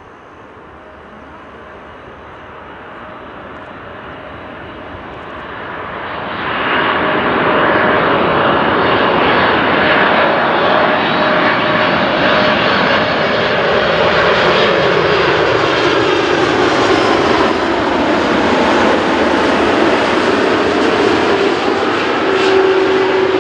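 Boeing 747-8F freighter's four GEnx jet engines on landing approach, growing louder for about six seconds, then loud jet noise as it passes close, with a tone that falls steadily in pitch as it goes by.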